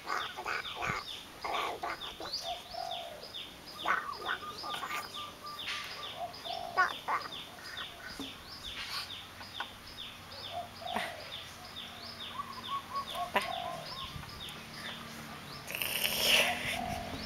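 Outdoor bird calls: a steady run of short, high, falling chirps, about three a second, with a few louder calls and knocks scattered among them and a louder rush of noise near the end.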